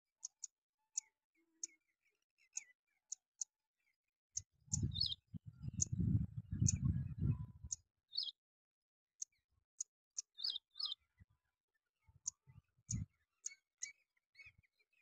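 Short high clicks and brief chirps from a bird, scattered irregularly throughout. A loud low rumble runs from about four and a half to eight seconds in.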